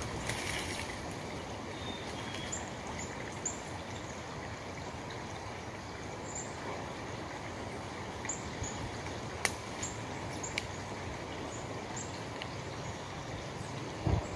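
Steady rush of a small woodland stream, with faint high chirps here and there and a couple of sharp clicks. A low thump in dry leaves near the end.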